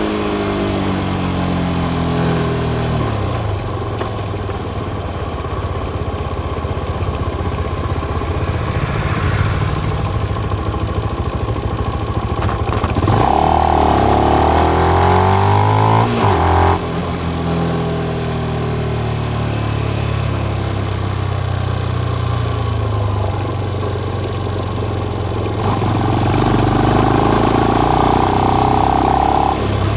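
Benelli BN125's small single-cylinder engine running through its stock exhaust with the dB killer in, while the motorcycle is ridden. The revs drop at the start, run steady, then swing up and down with a louder passage about halfway through, and pick up again near the end.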